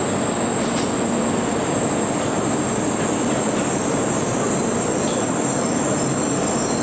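N700-series Tokaido Shinkansen train running slowly into the platform and braking to a stop: a steady rush of wheel and running noise with a thin high whine held over it.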